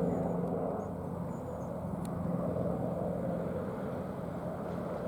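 Steady distant drone of a Boeing C-17A Globemaster III's four turbofan engines running, with a constant low hum under it.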